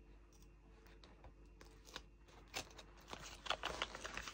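Faint crackling and light rustling of a diamond-painting canvas's clear plastic cover film as it is handled and peeled back from the double-sided glue; only scattered ticks at first, busier in the second half.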